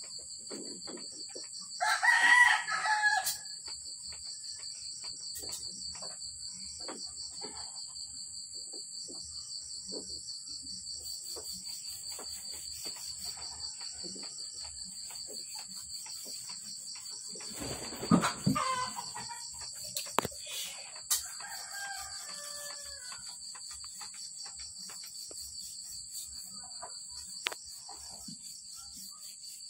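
A rooster crows once, loudly, about two seconds in, and chickens cluck a few times later on. Insects keep up a steady, pulsing high-pitched chirring throughout.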